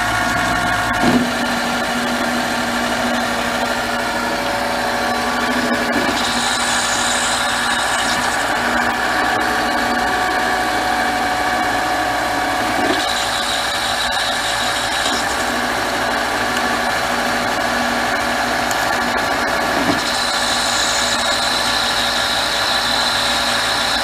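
Metal lathe running at about 700 rpm with a steady machine whine while the tool takes a turning cut on a part with a copper section. There is a knock about a second in, and a higher hiss of cutting comes and goes three times.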